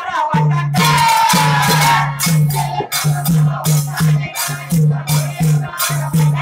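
Devotional bhajan: a man singing a long sliding line over small hand cymbals (taal) clashing about three times a second and a double-headed drum keeping the beat.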